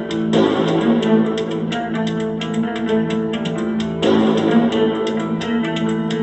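Guitar-led instrumental music with steady plucked notes, played through a small JBL T113 Bluetooth speaker, with little deep bass.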